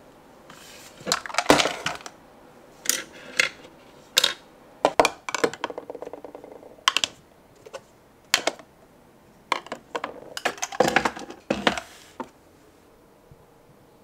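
Cosmetic bottles and tubes being set down into clear acrylic organiser cases: irregular knocks and clatters of plastic on acrylic, with a quick little rattle about five seconds in.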